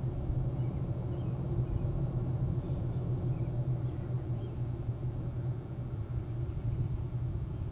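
Steady low rumbling outdoor background noise, even throughout, with no distinct events.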